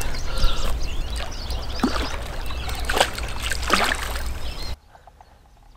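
Water splashing and sloshing as a hooked carp thrashes at the surface, with three sharper splashes, over a steady low rumble. The sound drops away abruptly near the end.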